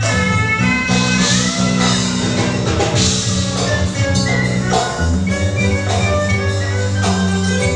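Music: plucked strings and percussion over held bass notes, with the bass moving to a lower note about five seconds in.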